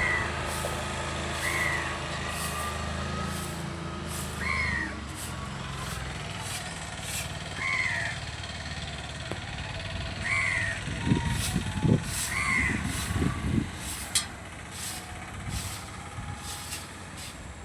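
A bird calls six times with short arched cries, a couple of seconds apart. Under it an engine runs with a low hum that fades out about four seconds in, and a few low rumbles come near the middle.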